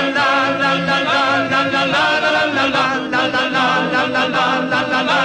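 Music: a wordless sung interlude, with voices holding long notes with vibrato.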